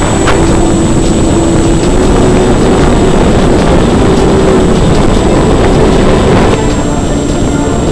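Electric RC glider's motor and propeller running under power, a steady hum with a held tone, mixed with wind rushing over the onboard camera. It eases slightly about six and a half seconds in.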